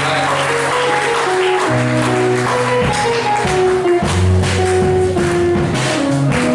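Music with a bass line and held melody notes, with clapping; sharp percussive hits come in about three seconds in.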